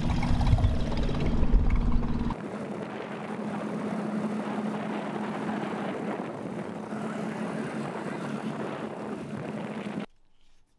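Small outboard motor running steadily with a constant low drone. About two seconds in the sound changes to the motor under way with water rushing past the hull, and it cuts off abruptly shortly before the end.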